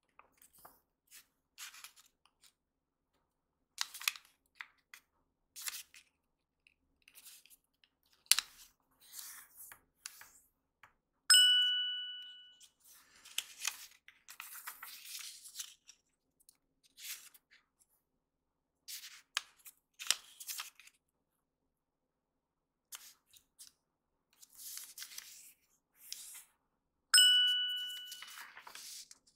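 Origami paper being folded and creased by hand, heard as scattered rustles and short, sharp crinkles. Two loud bell-like dings, about 11 seconds in and near the end, each fading over about a second.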